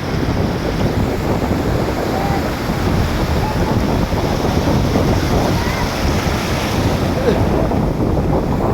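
Ocean surf washing on the shore with wind buffeting the microphone, a steady low rumble.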